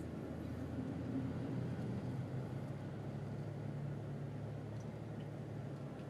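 Car engine and tyre noise from inside a moving car: a steady low hum.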